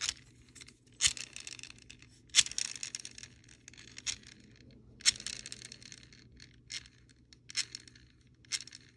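Hands handling the metal gearbox shell and internal parts of an airsoft rifle: scattered light clicks, scrapes and small metallic clatter, coming in short clusters every second or so.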